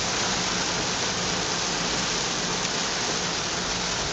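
Steady hiss of rain and running water around a car on a flooded road.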